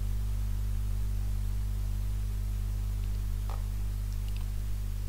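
Steady electrical hum in the recording, a low drone with several even overtones and a faint hiss. A faint short tick about three and a half seconds in.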